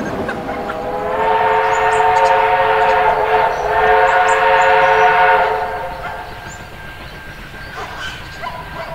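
Steam locomotive whistle blowing one long blast of several tones sounding together, about four seconds long, dipping briefly midway before it stops, as the steam train sets off.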